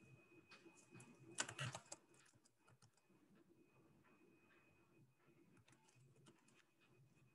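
Near silence with faint computer keyboard typing: scattered key clicks, with a short flurry of them about one and a half seconds in.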